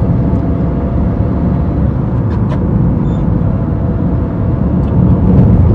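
Steady low rumble of engine and road noise inside a moving Suzuki car's cabin.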